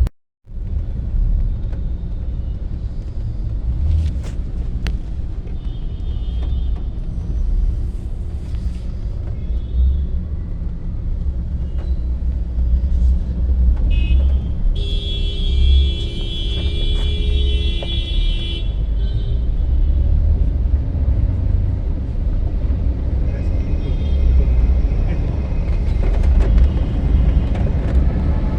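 Steady low rumble of road traffic, with short vehicle horn beeps now and then. One long horn blast starts about halfway through and lasts three to four seconds.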